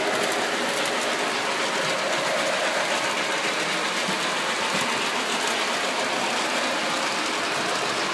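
O gauge model trains running steadily on the layout's track: a continuous mechanical rumble of the locomotive motors and wheels on the rails.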